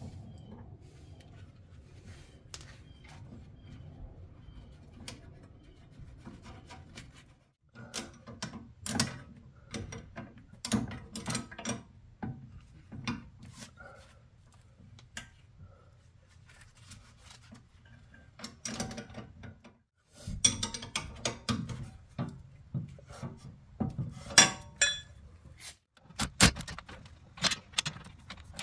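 Irregular clinks and knocks of hand tools and metal suspension parts being handled, over a low steady hum, broken by a few abrupt cuts.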